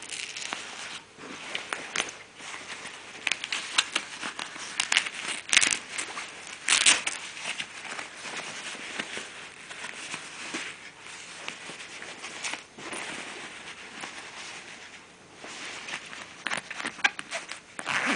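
Waterproof fabric of a military vest rustling and crinkling as a hand rubs and pulls at it, with a few louder crackles about a third of the way in.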